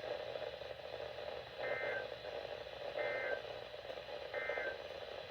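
Emergency Alert System end-of-message (EOM) tones: three short, identical bursts of warbling SAME digital data, each about a third of a second, about a second apart, signalling that the alert broadcast is over. Heard over a steady radio hiss.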